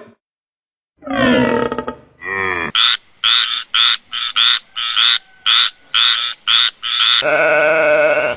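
Animal calls: after a second of silence, a drawn-out call and a short one, then a quick run of about thirteen short calls, roughly three a second, and a held call at the end.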